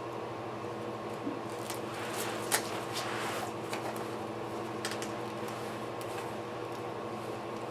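Light clicks and rustling of swing parts being handled during assembly, the sharpest click about two and a half seconds in, over a steady hum.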